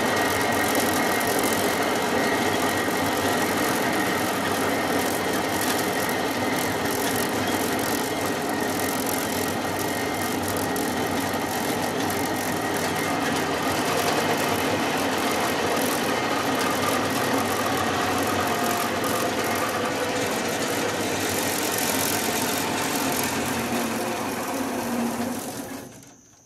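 Cable car running along its cable: a steady mechanical rumble with rattling and a thin steady whine on top. The sound fades out quickly near the end.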